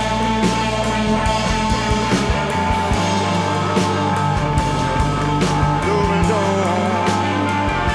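Rock band playing: guitar, bass and drums with a steady beat, and a wavering melodic line a little before the end.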